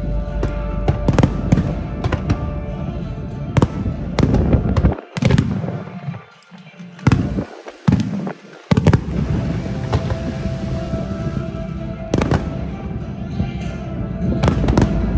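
Aerial fireworks shells bursting in an irregular volley of sharp bangs, heard from a few hundred metres away. Music plays alongside, and the bangs thin out for a few seconds in the middle.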